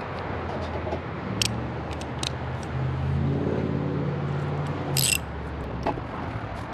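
A motor vehicle engine humming steadily, growing louder near the middle and fading again, with a few sharp metallic clicks and a brief clink from hand tools at work on the oil filter.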